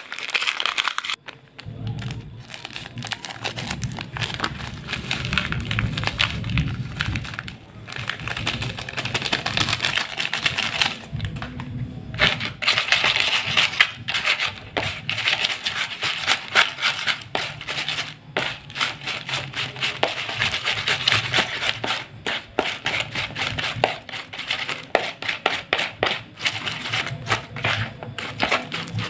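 Crackers crushed by hand inside their plastic wrapper, with the packet crinkling and the crackers crunching. Later the crumbs and grated taro are rubbed and pressed by hand in a plastic basin, a steady run of small crackling and scraping sounds with a few short pauses.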